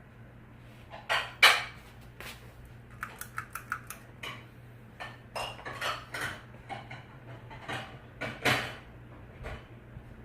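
Hampton Bay Southwind ceiling fan motor running with a low steady hum, under a series of irregular clinks and clatters. The clatters are loudest about a second and a half in and again near the end.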